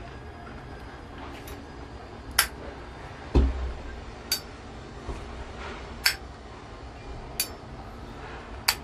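Brass Zippo lighter being handled: five sharp metallic clinks spaced a second or two apart, typical of the hinged lid snapping open and shut, with one duller knock about three and a half seconds in.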